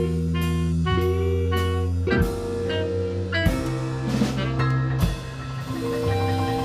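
Blues band playing without vocals: held chords over drums, with a few sharp accented hits.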